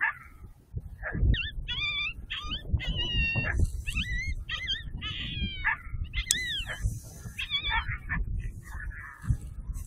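A run of coyote-style yips and whining cries, each short and bending up and down in pitch, several a second from about a second in until near the end, over a low wind rumble.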